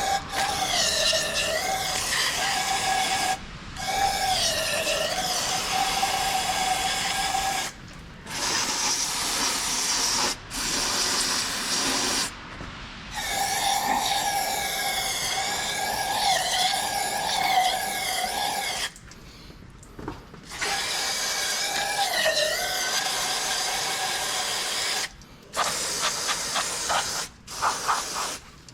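A power tool running in long bursts with a hiss, its pitch wavering up and down, cutting off sharply several times between runs.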